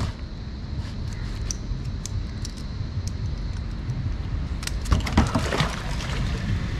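Metal fish lip-grip clicking and jangling as it is handled and unclipped from a fish's jaw: one sharp click at the start, scattered light clicks, and a cluster of clicks and rattles about five seconds in, over a steady low rumble.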